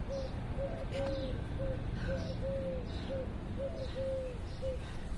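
A dove cooing: a quick run of short, clear coos at one pitch, about three a second, that stops a little before the end, with faint small-bird chirps above it.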